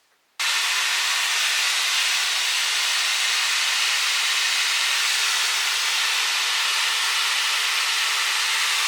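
Laifen Swift hair dryer with its diffuser attachment blowing steadily, a loud even whoosh of air that starts abruptly about half a second in.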